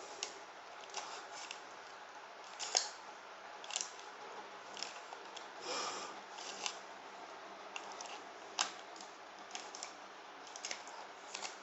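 Faint handling noises: scattered light clicks and brief rustles of small objects being picked up and moved, the sharpest about three seconds in and again near nine seconds, while a point on the hand is marked.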